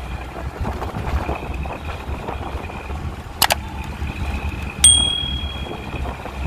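Steady low rumble of a truck running on the road, heard from the cab. Over it, a subscribe-button sound effect: a sharp click about three and a half seconds in, then a bright bell ding about a second and a half later that rings for about a second.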